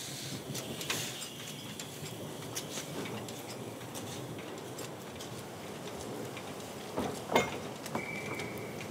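Small narrow-gauge steam tank locomotive, a 600 mm LOWA BN2T, moving off slowly: a soft steady hiss with light ticks and clanks, a louder knock about seven seconds in, and a short high steady tone near the end.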